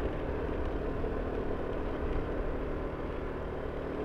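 Motorcycle engine running steadily under load while climbing a steep road.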